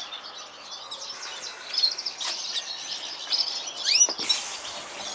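Small caged birds, canaries among them, chirping and twittering in quick, high calls, with a few louder calls about two and four seconds in.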